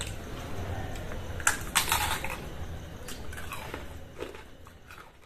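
Crisp deep-fried raw potato and sabudana (sago) pakoras crunching as they are broken and chewed: a few short, scattered crackly crunches over a low steady hum.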